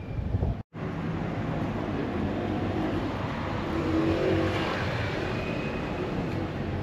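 Steady motor-vehicle engine and road noise, swelling slightly around the middle, broken by a brief total dropout less than a second in.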